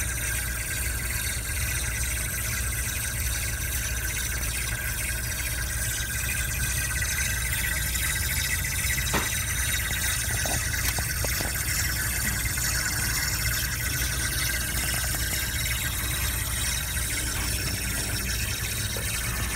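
Refrigerant hissing steadily in a Honda CR-Z's air-conditioning lines after the engine is switched off: the high-side and low-side pressures equalizing, which is normal. A low steady rumble runs beneath it, and a few faint clicks come about halfway through.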